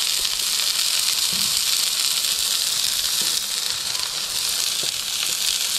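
Burger patties sizzling on the grates of a hot Weber gas grill, a steady hiss with a few faint ticks.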